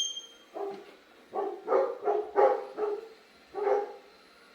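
Dog barking in a quick, uneven run of about seven barks, then stopping near the end; the dog is antsy at landscapers working next door.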